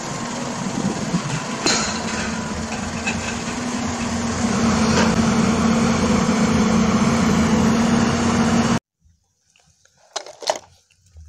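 Mitsubishi Canter dump truck's diesel engine running as the truck drives across a dirt yard, with a steady low hum that grows louder about halfway through. The sound cuts off suddenly near the end, followed by a couple of brief knocks.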